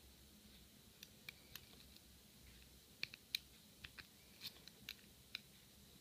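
Faint, sharp metallic clicks of a hook pick working the spool and serrated pins of a Sesamee brass padlock under tension: about a dozen small clicks, a few early and a quicker cluster in the second half.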